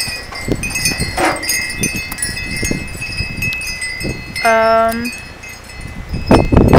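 Wind chimes ringing steadily in strong wind, with gusts buffeting the microphone and swelling near the end. About four and a half seconds in, a brief steady-pitched whine lasts about half a second.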